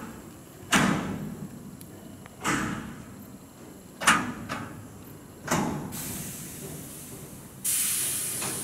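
Container freight train rolling past, its wagons clanking loudly about every one and a half to two seconds over a steady rumble of wheels on rail. A sharp hiss sets in near the end.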